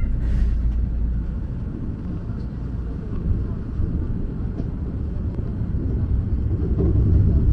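Enoshima Electric Railway train running on the track, heard from inside the front cab: a steady low rumble of wheels and running gear that grows louder near the end.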